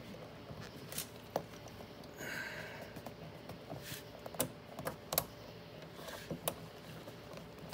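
Scattered light clicks and taps as a window crank handle is pushed onto its splined regulator shaft through a door panel, with the retaining pin snapping into place, plus a short rasp about two seconds in.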